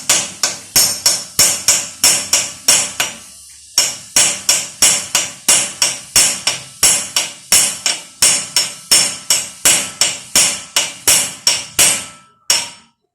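Hammer blows on metal, about three a second, with a short pause about three and a half seconds in, beating on a seized wheel lug nut to break it off.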